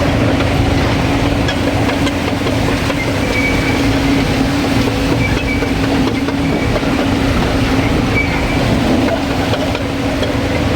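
Hydraulic excavator's diesel engine running steadily with a constant hum, with a few brief faint high squeaks about 3, 5, 6½ and 8 seconds in.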